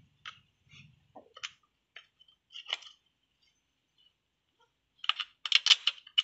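Small metal clutch parts being worked in gloved hands: scattered light metallic clicks and scrapes, then a quick run of louder clinks and clatter about five seconds in.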